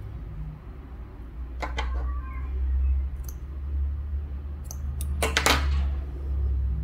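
Hands handling strands of cotton yarn: soft rustles and a few light clicks, with a louder rustle of the yarn skein about five seconds in, over a steady low rumble.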